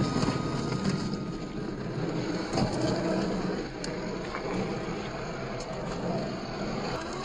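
RC scale crawler's electric motor and drivetrain running as it climbs over rocks, with tyres scrabbling and a few sharp clacks of stone.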